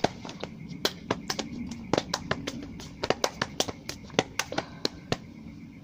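Wet clicks and smacks of someone chewing gooey, chewy candy with the mouth open: a rapid, irregular run of sharp clicks, about four a second.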